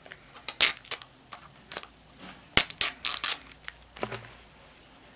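Fingernails picking and scraping at a sticker on a plastic DVD case: irregular clusters of sharp clicks and scratchy scrapes, loudest just after the start and around the middle.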